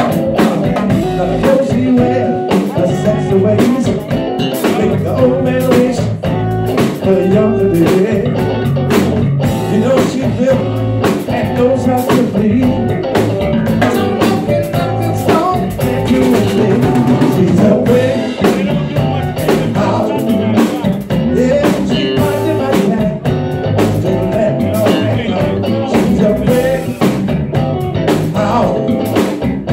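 Live band playing an electric blues-funk number: electric guitar, bass guitar and a drum kit keeping a steady beat, with a man singing over them.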